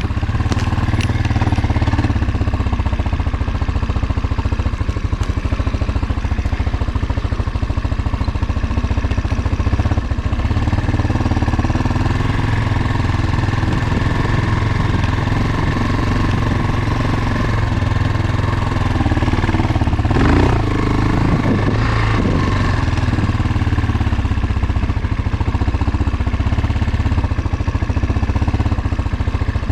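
Motorcycle engine running steadily while being ridden slowly, with a brief louder rise about twenty seconds in.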